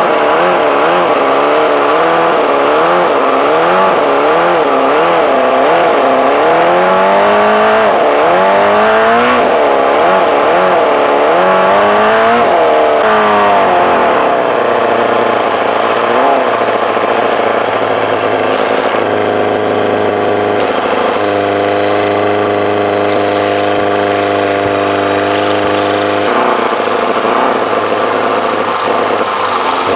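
Toyan FS-L400 four-cylinder four-stroke nitro model engine, mounted on a moped engine case and belt-driving its gearbox, running on the bench with cooling water hooked up. For about the first fourteen seconds its speed rises and falls again and again; after that it runs steadier, with a few small shifts in pitch.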